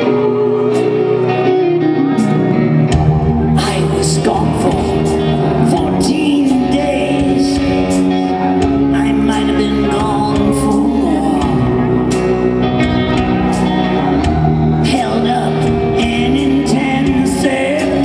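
Live rock band playing with a man singing over it; drum and cymbal hits throughout, and the low bass comes in about three seconds in.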